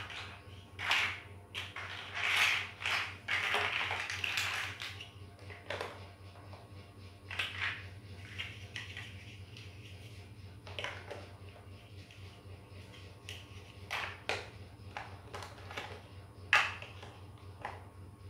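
Large plastic toy building blocks clicking and clacking as they are pressed together and picked out of a heap, with a longer stretch of rattling clatter about two to five seconds in and one sharp click near the end that is the loudest.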